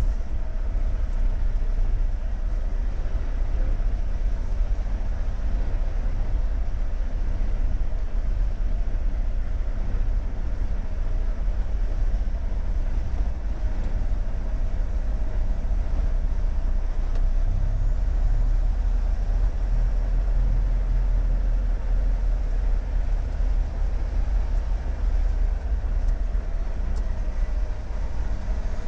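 A Volvo FH truck's engine running steadily at low speed, heard from inside the cab as a low rumble with a faint steady whine above it.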